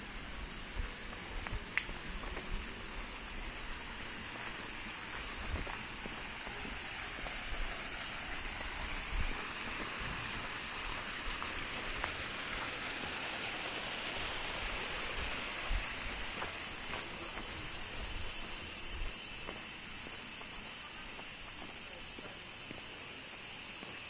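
A summer cicada chorus: a steady, high-pitched shrill drone that grows a little louder past the middle, with soft footsteps on a path beneath it.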